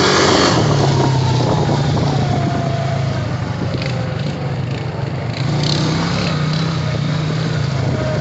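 Honda Rancher ATV engine running steadily while riding a dirt trail, with rough tyre and trail noise over it.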